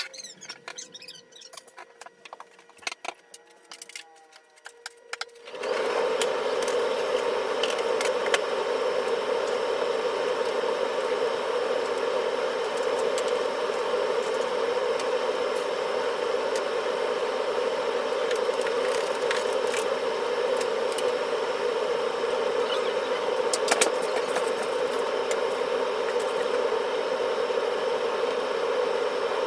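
Scattered light clicks and handling taps, then about five and a half seconds in a loud, steady whirring noise starts abruptly and holds without change.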